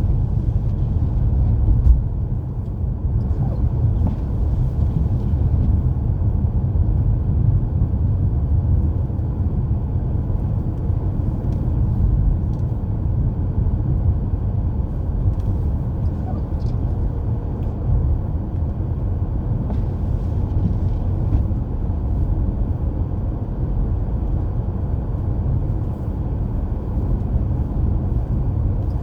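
Steady low rumble of a car driving through a snow squall, with tyre and engine noise heard from inside the cabin.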